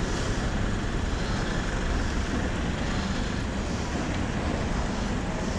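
Steady rush of wind on the microphone mixed with road noise from riding along an asphalt street.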